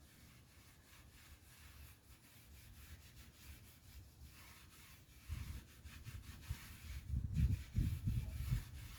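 A cloth rubbing stain onto bare wood, faint at first, then louder, uneven scrubbing with low bumps from about five seconds in.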